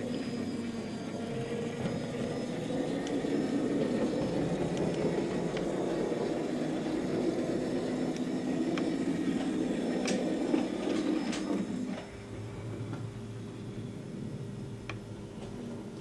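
HO scale model train running on the track: a steady rolling rumble with a few sharp clicks about ten seconds in, dropping to a quieter, steadier hum about twelve seconds in.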